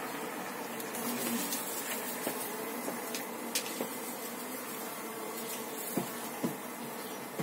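Honeybee colony humming steadily, with a few light clicks and knocks of wooden hive frames and boxes being handled.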